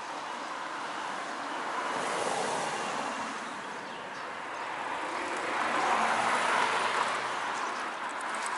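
Wheels of a pet cart rolling over asphalt: a steady rolling noise that swells louder twice.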